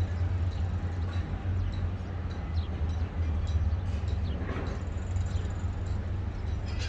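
Urban outdoor ambience: a steady low rumble under an even hiss of fountain water, with scattered short bird chirps.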